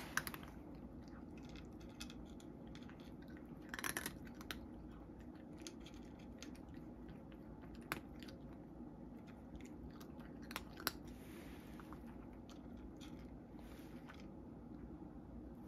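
A cat crunching dry kibble from a dish: faint, irregular crunches, with a small cluster about four seconds in.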